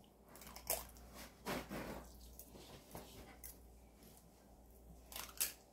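Fork spreading egg salad over slices of white bread: soft squishing and scraping strokes in a few short bursts.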